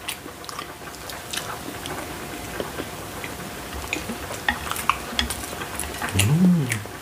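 Eating at the table: wooden chopsticks clicking against ceramic plates as noodles and boneless fried chicken are picked up, with chewing. Near the end there is a brief hum of a voice that rises and falls.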